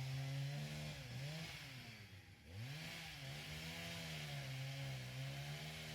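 Faint chainsaw engine running at working speed, its pitch sagging briefly a little past two seconds in and then climbing back.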